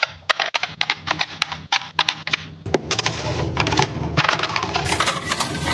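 Rapid clicking and clattering of small hard items being handled and set down, as in restocking a fridge with packaged food and plastic containers, over a low steady hum. The clatter grows denser and brighter about five seconds in.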